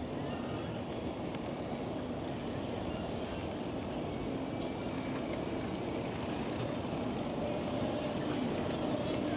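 Steady low rumble of city traffic and street noise heard from a moving bicycle, growing slightly louder near the end.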